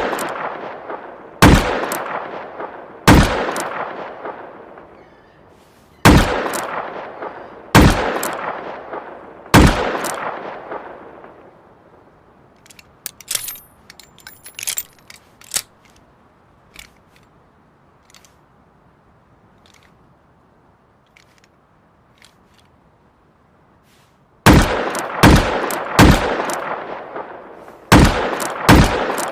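Makeshift high-calibre revolver gunshot sound effect. Five single heavy shots come a second and a half to three seconds apart, each with a long echoing tail. A few light clicks follow in the middle. Near the end comes a quicker string of about six shots.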